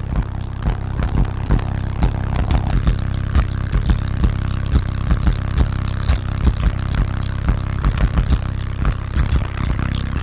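Car audio system of eight 15-inch Crossfire XT3 subwoofers on four Crossfire 8K amplifiers, playing bass-heavy music loud inside the vehicle, with a pulsing bass beat. The system is not turned up to full power.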